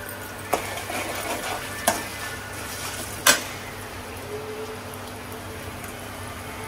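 A metal slotted spoon stirring a tempering of peanuts, chillies and curry leaves frying in oil in a metal kadai, over a faint sizzle. The spoon clinks sharply against the pan three times in the first half.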